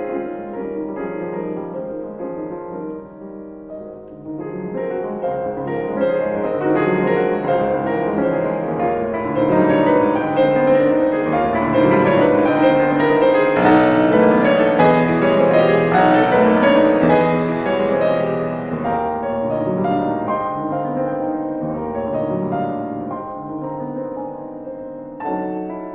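Solo piano music playing, swelling louder toward the middle and then easing off.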